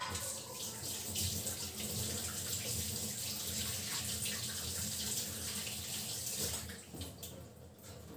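Kitchen tap running into a stainless steel sink while peeled onions are rinsed under the stream by hand. The water starts suddenly and runs steadily, then stops about seven seconds in.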